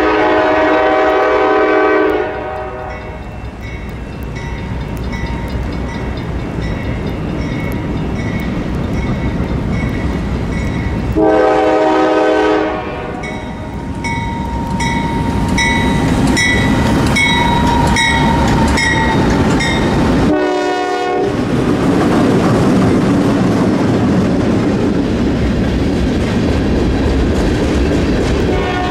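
Norfolk Southern freight locomotive's horn sounding the grade-crossing pattern: a long blast, a second long blast, a short toot as the locomotive passes, and a final long blast beginning at the end, while the locomotive bell rings steadily for most of the approach. After the locomotives pass, the freight cars rumble and clatter by on the rails.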